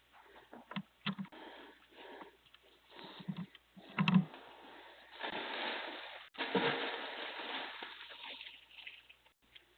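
A few knocks and thumps, the loudest about four seconds in, followed by a few seconds of rustling, heard through a doorbell camera's microphone.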